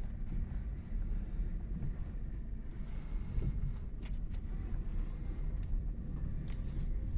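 Front suspension of a Toyota Carina knocking under a steady low rumble of the moving car, with a few sharp knocks about four seconds in and again a little before the end. The knock persists after new struts, sway-bar links, subframe bushings and tie-rod ends, and its cause is unknown.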